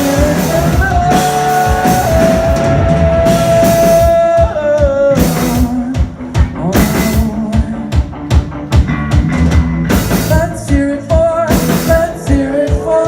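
Live rock band playing: drum kit, electric guitars and vocals. The singer holds one long note for about three seconds near the start, then the drums and guitars carry on under a steady beat.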